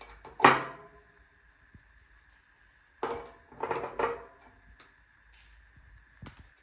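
Dishes and cutlery clinking and knocking at a table: one sharp ringing clink about half a second in, then a quick run of three or four clatters about three seconds in.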